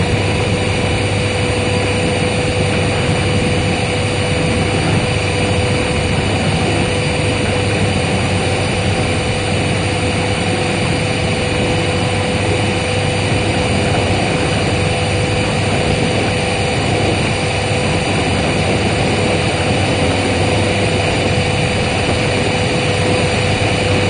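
Vacuum cleaner running steadily at full power, loud and very close to the microphone, which is mounted on the vacuum itself: a steady motor hum with a constant whine over it.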